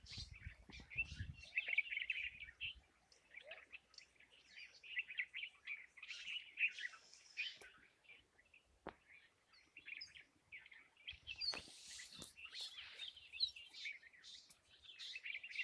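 Birds chirping: many short, overlapping high calls, with a single sharp click about nine seconds in.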